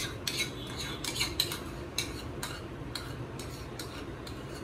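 Metal spoon scraping and clinking against a small bowl as the last of the yogurt is scooped out: a string of irregular light clicks and scrapes, a few a second.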